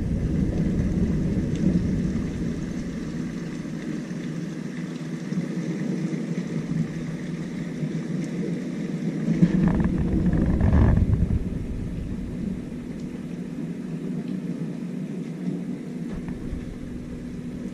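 Thunder rolling during a thunderstorm: a low rumble at the start that fades over a few seconds, then a second, louder rumble about ten seconds in. A faint steady hum runs underneath.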